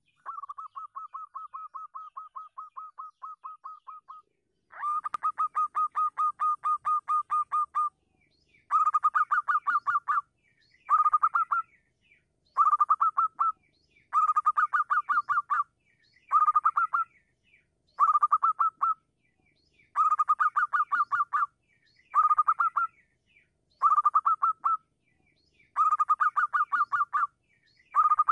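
Zebra dove (perkutut) cooing: rapid trains of short, high-pitched notes, several a second. A fainter run comes first, then from about five seconds in louder bouts of one to three seconds, repeated about every two seconds.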